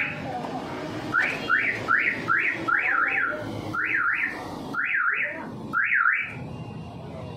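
Aftermarket central-locking system's siren chirping as the car is locked and unlocked from the remote: quick electronic chirps that sweep up and back down, a run of about six, then three pairs.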